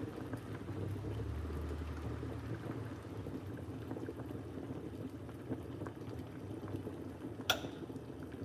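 Chicken soup boiling under the lid of an aluminium pot on an electric hotplate: a steady low bubbling. One sharp click sounds near the end.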